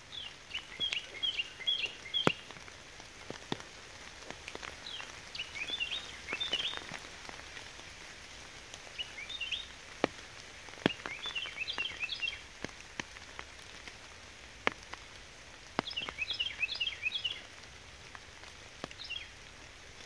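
Steady rain falling in woodland, with heavy drops dripping and tapping sharply onto leaves every second or two. Bursts of quick, high chirps come and go every few seconds over the rain.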